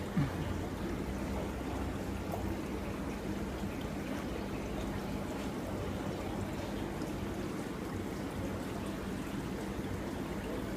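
Aquarium filter running: water steadily trickling and splashing over a low pump hum. A brief thump just after the start.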